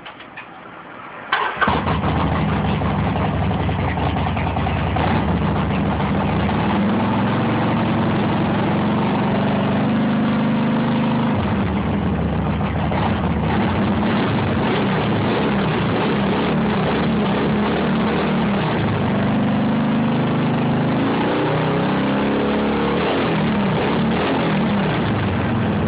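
Harley-Davidson V-twin with Screamin' Eagle exhaust pipes starting up about a second in, then running loud at idle, its pitch rising and falling a few times as the throttle is worked.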